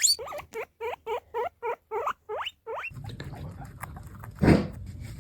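Guinea pig wheeking: a fast series of shrill rising squeaks, about four a second, that sounds like an alarm and stops a little under three seconds in. A rough, even noise follows, with one louder thud about four and a half seconds in.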